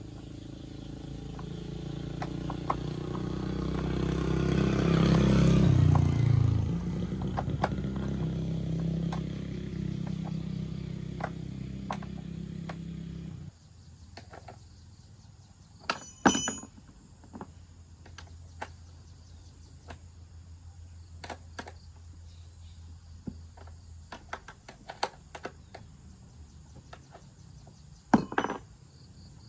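A motor runs with a steady low hum, swells and shifts pitch, then stops abruptly. Scattered knocks and clinks follow, with two louder sharp knocks.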